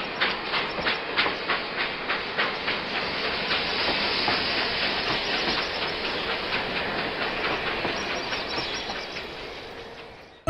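Train running: a rhythmic clacking of about four beats a second over a steady hiss. It smooths out, then fades away near the end.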